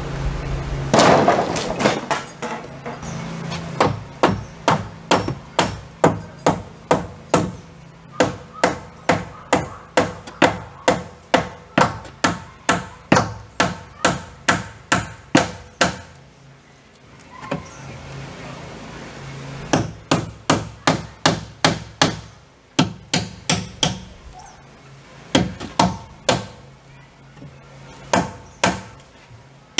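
Hammer driving nails into a wooden king stud in wall framing. There is a loud knock about a second in, then a long run of steady blows at about two a second, a pause of a few seconds, and two shorter runs of blows.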